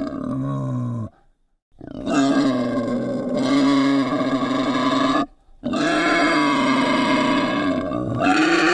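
Wild boar grunting in three stretches: a short one, a near-silent break about a second in, then two long runs of several seconds separated by a brief pause.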